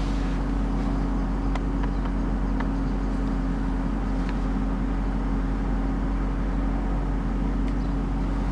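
Jaguar XK8's V8 engine idling steadily.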